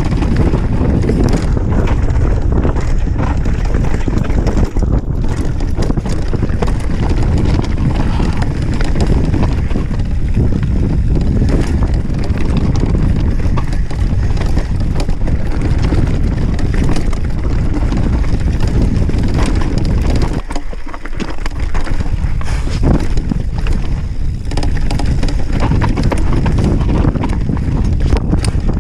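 Mountain bike descending a rough dirt trail: wind buffeting the chest-mounted microphone, tyres rolling over dirt and stones, and many small knocks and rattles from the bike over the bumps. The low rumble drops out briefly about two-thirds of the way through.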